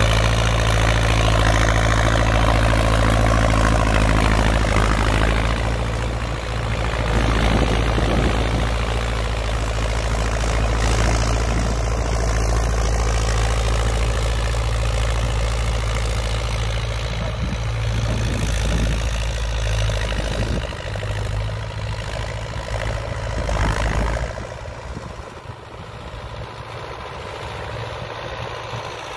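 Old Belarus MTZ tractor's diesel engine running steadily under load as it pulls a soil-tilling implement. It is loud while close, then drops in level about twenty-four seconds in as the tractor moves off.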